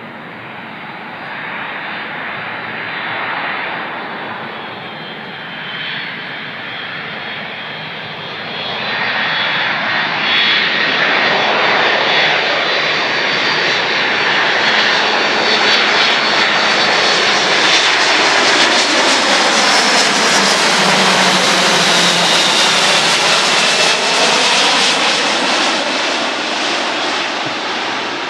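Boeing C-17 Globemaster III's four Pratt & Whitney F117 turbofans on landing approach, passing low overhead. The jet noise and whine build up, are loudest through the middle, then the whine falls in pitch as the aircraft moves away.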